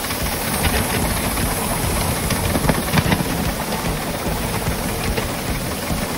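7¼-inch gauge Romulus live steam locomotive running along the track, heard from close behind: steady running noise with many small clicks from the wheels on the rails, steam from the engine, and wind rumbling on the microphone.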